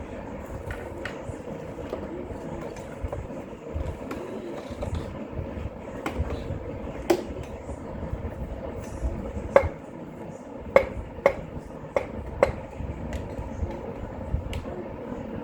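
Hand tools clinking and knocking on metal under the hood, several sharp, irregular clinks, most of them in the second half, over a low handling rumble.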